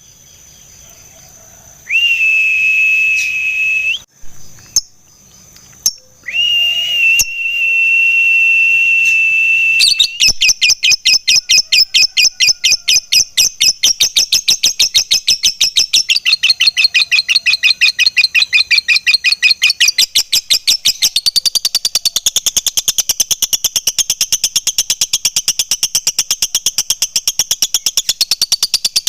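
Lovebird chattering in one long, unbroken run of rapid, evenly spaced high notes (the 'ngekek panjang' song prized in fighter lovebirds), starting about ten seconds in. Before it come two long, steady, high whistled notes.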